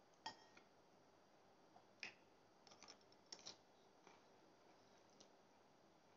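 Metal fork and spoon clinking and tapping against a plate while eating: a few short, light clinks, several bunched together about three seconds in, with near silence between them.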